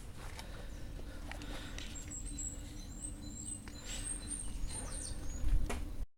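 Small birds chirping faintly in short, high calls over a steady low rumble, with a few light knocks. The sound cuts out abruptly near the end.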